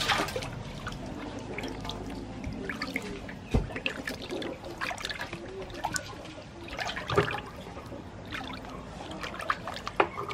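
Raw pork being washed by hand in a large aluminium basin of water. It lands in the water with a splash at the start, then irregular sloshing and trickling follow as the hands rub and turn the meat.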